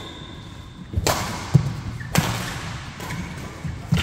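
Badminton rally: two sharp racket hits on the shuttlecock about a second apart, with low thuds of footsteps on the court floor. A thin high squeak is heard at the start.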